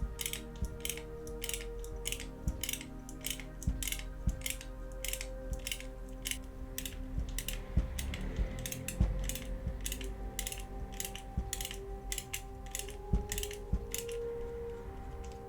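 Background music with a steady ticking beat, about three ticks a second, over held tones. A few irregular low knocks sit under it.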